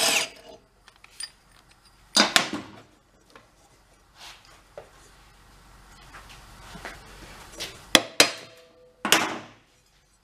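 Blade being taken off a walk-behind mower's deck: a few short noisy bursts of tool work at the blade bolt, with two sharp metal clinks about eight seconds in.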